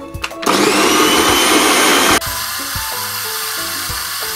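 Electric food processor motor starting about half a second in, spinning up quickly and whirring steadily as its blade chops onion into a liquid steak sauce. The sound drops a little after about two seconds and runs on steadily. Background music plays throughout.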